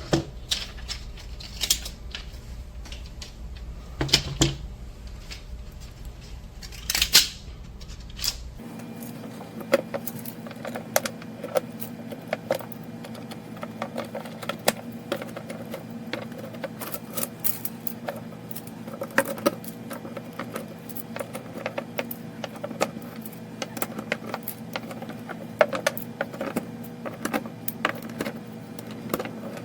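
Small hard parts of a kinetic sculpture clicking and clinking irregularly as its wheel arms are fitted by hand, over a faint steady hum that changes character about eight seconds in.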